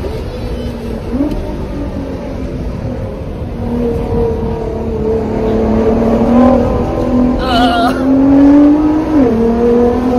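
Nissan GT-R's twin-turbo V6 heard from inside the cabin under hard acceleration. The engine pitch climbs steadily through a gear, drops suddenly at an upshift near the end, then starts climbing again.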